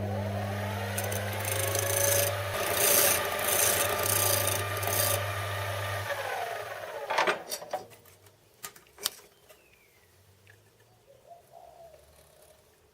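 An electric workshop machine starts with a mains hum and a rising whine as it spins up, while a wooden pattern is sanded against it in rasping strokes for a few seconds. It is then switched off and winds down with a falling whine about six seconds in, followed by a few light clicks.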